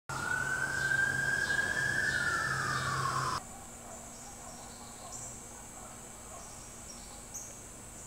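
A buzzing insect drone that rises slowly and then falls in pitch, cut off suddenly about three seconds in, followed by faint outdoor background with thin high insect tones.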